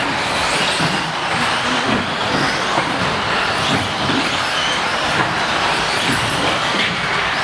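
Electric RC off-road buggies racing on an indoor track: high-pitched motor whines rise and fall over a steady din of cars and hall echo.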